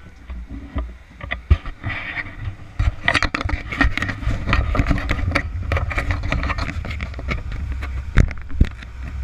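Tour catamaran's engines running with a steady low rumble that gets louder about three seconds in. Many sharp knocks and clicks sound over it, the loudest one early and two near the end.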